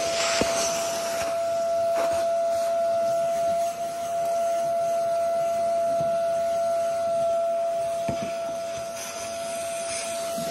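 Canister vacuum cleaner running, its motor giving a steady high whine over the rush of suction. A few light knocks come through, about half a second in, about two seconds in and about eight seconds in.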